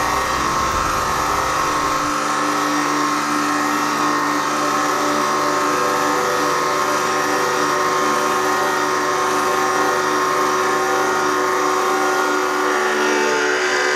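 Hydraulic press pump and motor running steadily while the ram presses down: an even mechanical whine made of several fixed tones.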